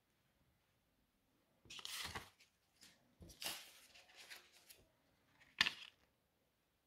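Euro banknotes rustling and crinkling as they are handled on a table, in three bursts, the last short, sharp and loudest.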